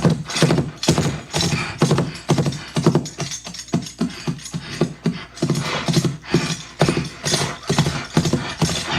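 Foley horse track played back: hoofbeats knocked out with prop horse hooves in a steady rhythm of about three a second, layered with a jingling bridle and vocal horse snorts.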